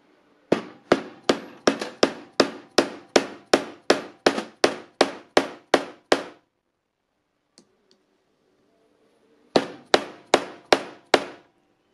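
Hammer blows on a metal pipe used as a driver to press a new ball bearing onto its bolt. About sixteen ringing strikes come at roughly three a second, then a pause, then five more.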